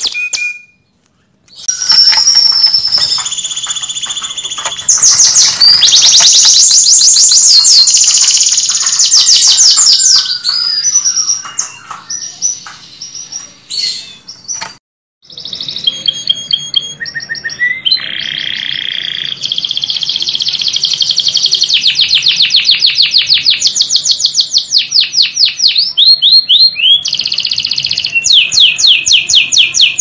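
Domestic canary singing: rapid trills and rolls of fast-repeated high notes, one phrase following another, with two short breaks, about a second in and near the middle.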